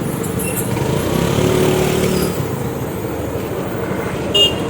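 A motor vehicle's engine running steadily at low speed, with a short high-pitched sound near the end.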